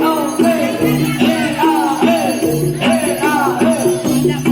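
Jaranan dance accompaniment music: a repeating, interlocking pattern of low pitched notes under a gliding, wavering melody line, with jingling bells.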